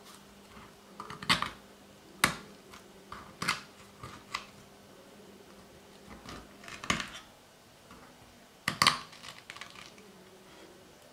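Kitchen scissors cutting into a peach around its stone: a series of sharp snips and crunches, with the loudest about nine seconds in.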